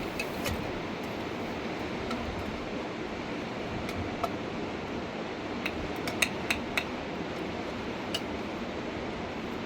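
Steady rushing of a mountain river, with a few sharp light clicks or knocks over it, several close together about six to seven seconds in.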